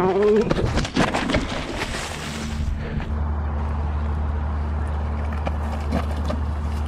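A rider and a small electric mini bike crashing onto a gravel track: a short yell, then a couple of seconds of clattering and scraping as bike and rider hit the ground. After that a steady low hum.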